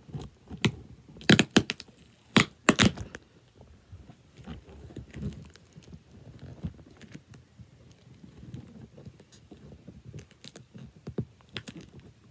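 Hands working at a plastic-wrapped cardboard box. There is a quick burst of loud, sharp clicks and knocks in the first three seconds, then quieter clicking and handling noise.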